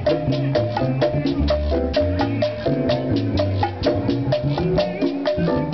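Live Latin band playing a cha-cha: upright bass notes low under a steady percussion beat of short, quick strokes, with short repeated higher pitched notes on top.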